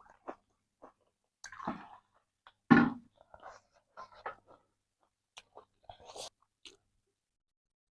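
Close chewing and mouth sounds from eating: a string of short, irregular clicks and smacks, with one louder burst about three seconds in.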